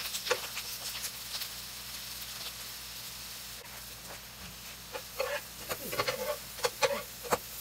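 Potato pancakes sizzling in oil in a nonstick frying pan, a steady hiss, with short clicks and scrapes of a metal spatula against the pan as the pancakes are flipped. The clicks come more often in the second half.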